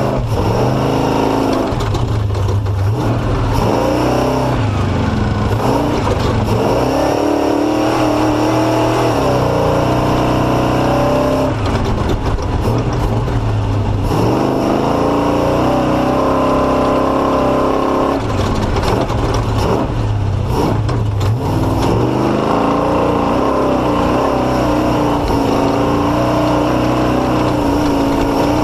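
Off-road race vehicle's engine revving up and down again and again, as it would working slowly through rough, tight terrain, with knocks and rattles throughout.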